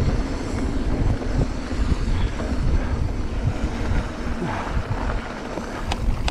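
Wind buffeting the microphone of a camera on a moving mountain bike, with the rumble of knobby tyres rolling over a dirt trail and a few short knocks and rattles from the bike over bumps.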